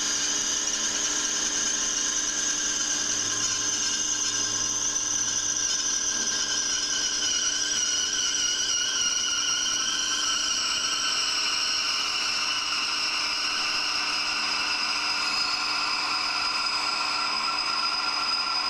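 A rotating glass-cutting wheel grinding into a glass vessel pressed against it. It makes a steady high whine with squealing tones that drift slowly lower.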